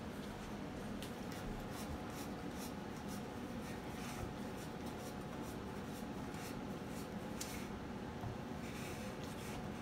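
A dog nosing tennis balls around in a metal muffin tin, making soft, scattered rubbing and scraping as the balls shift in the cups.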